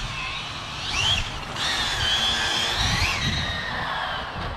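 Twin electric motors of an Arrma Felony RC car whining, the pitch rising and falling as the throttle is worked, with quick rises about a second in and again about three seconds in.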